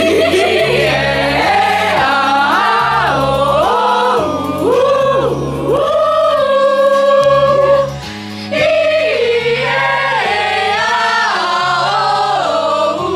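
A group of voices singing a melody together over an accompaniment with a bass line that steps from note to note. The singing breaks off briefly about eight seconds in.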